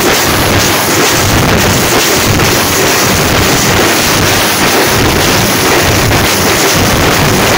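A troupe of drums beaten with sticks, playing loud, dense drumming that overloads the microphone into a steady roar of noise.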